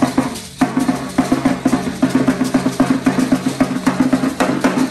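Large hand-held frame drum beaten with a stick in a fast, steady rhythm of about six strokes a second, each stroke with a low ringing note.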